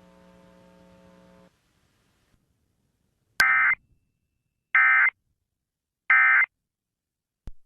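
Emergency Alert System end-of-message data bursts, heard over the air: three short, identical digital screeches about a second and a third apart, closing a required monthly test. A faint hum fades out about one and a half seconds in.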